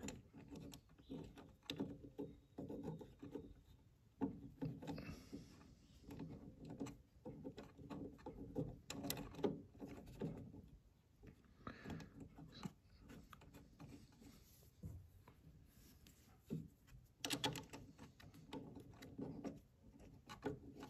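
Faint, irregular clicks and rubbing as bolts are threaded finger-tight by hand into the blade clamp on a DeWalt DW734 planer's cutterhead, with a louder run of clicks about 17 seconds in.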